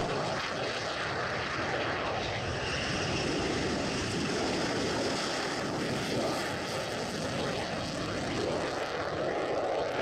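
Fighter jets in flight: a steady rushing engine noise, with a faint high whine riding over it.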